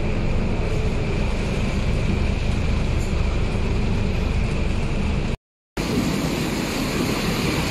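Scania K230UB single-deck bus's diesel engine running steadily, heard from inside the passenger cabin as the bus drives. After a sudden cut and a moment of silence, heavy rain hisses and the bus's engine is heard from the kerb as it pulls away.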